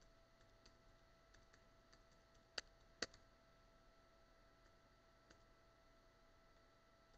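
Faint keystrokes of typing on a computer keyboard, with two sharper, louder clicks about two and a half and three seconds in, over a faint steady hum.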